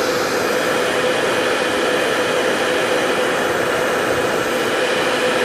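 Hair dryer blowing steadily on a high setting, a constant rush of air with a steady motor hum, heating a phone's camera lens glass to loosen its adhesive.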